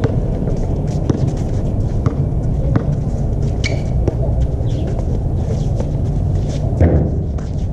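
Outdoor basketball play: scattered short knocks and clicks from the ball and players' shoes over a steady low rumble.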